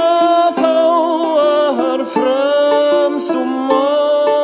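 Background music: a light plucked-string accompaniment with a sung melody over it.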